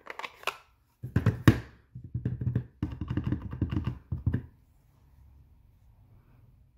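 Stampin' Up! ink pad's hinged plastic case being handled and opened, with a few clicks and a sharp snap about a second and a half in, then a run of light knocks and thuds as the clear acrylic stamp block is tapped onto the ink pad.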